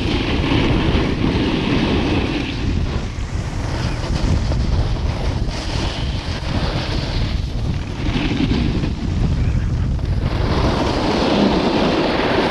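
Wind buffeting the microphone of a pole-mounted camera, with the scraping hiss of a snowboard's edges on groomed snow that swells and fades several times as the rider turns.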